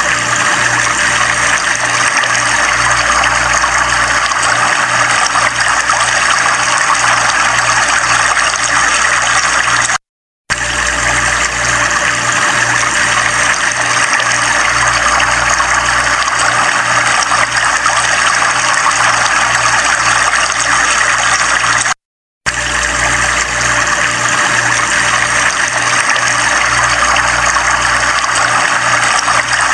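Loud, steady rush of a flooded river's brown water pouring over a low concrete weir. It cuts out briefly twice, about ten and twenty-two seconds in.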